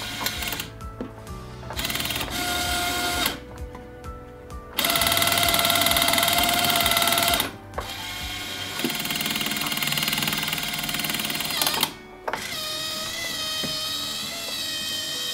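Background music with held, changing notes, broken by a few short pauses. Under it, for the first half, a small motor buzzes low; it stops about nine seconds in.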